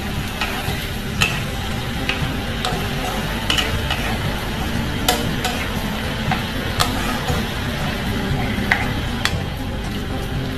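Glutinous rice and mushrooms frying in oil in a wok, a steady sizzle, while a wooden spatula stirs them. Irregular sharp scrapes and taps of the spatula against the pan come about once a second.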